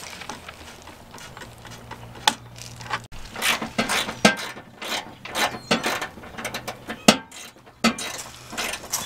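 Hand ratchet wrench clicking in short irregular runs as bolts are run in to fix grill-guard mounting brackets to the van's frame, the clicks coming thicker from about three seconds in.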